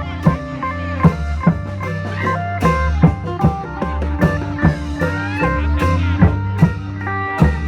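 Isan phin (plucked lute) playing a quick, busy melody over the steady beat of klong yao long-drum troupe percussion.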